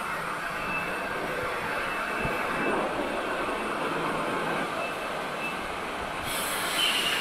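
Steady mechanical din of a running CNC machining center and workshop machinery, with a faint high whine that comes and goes. A hiss joins about six seconds in.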